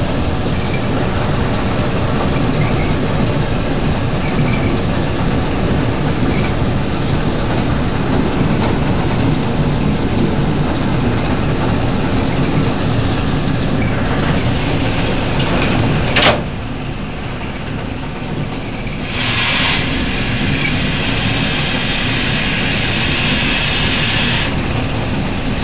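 Narrow-gauge train running, a steady rumble of wheels and engine heard from on board. About two-thirds of the way through there is a sharp click and the noise drops a little. A few seconds later a loud hiss starts, then stops shortly before the end.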